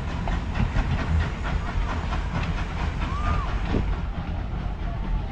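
Detroit & Lima Northern No. 7, an 1897 Baldwin 4-4-0 steam locomotive, running with its train: a steady hiss of steam over a low rumble, with the rattle of the cars on the track.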